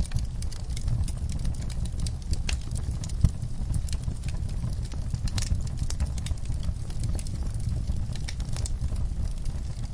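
Wood fire burning in a fireplace: a steady low rumble of flames with frequent sharp crackles and pops, one louder pop about three seconds in.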